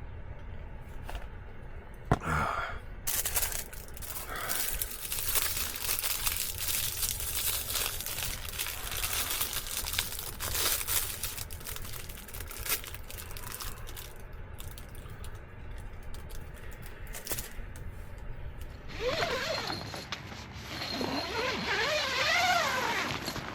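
Irregular rustling, crinkling and scraping handling sounds, like fabric and plastic being moved about. Near the end they give way to a louder wavering, warbling pitched sound.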